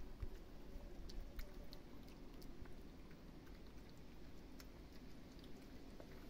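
Cats eating, faint scattered crunching clicks of chewing over a low steady rumble.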